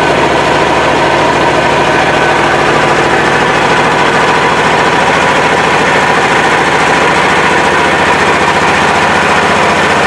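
Boat engine running steadily at an even speed, heard from aboard the moving wooden boat, with a fast, even low pulse under a loud continuous drone.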